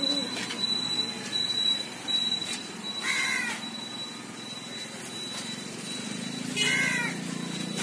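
An animal calling twice, short calls with a pitch that rises and falls, about three and a half seconds apart, over a thin steady high whine that fades out about five seconds in.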